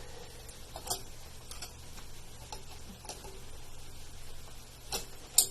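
Scattered light metallic clicks and taps, about five, the loudest near the end: a small tool working the sheet-metal ribbon vibrator of a Royal typewriter, bending its tab to close the gap that lets the ribbon pop out.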